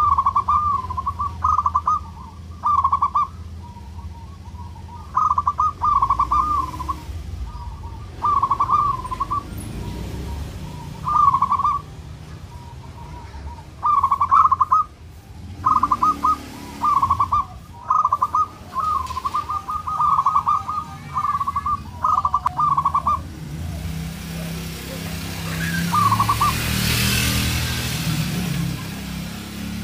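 Zebra dove (perkutut) singing: short phrases of quick, rolling coos come one after another every second or two. Late on the phrases thin out, and a broad rushing noise swells and fades under them.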